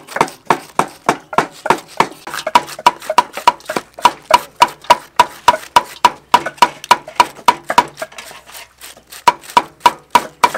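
Hand-held julienne peeler shredding vegetables over a metal bowl: quick, even scraping strokes about five a second, each with a short metallic ring. The strokes pause briefly about eight seconds in.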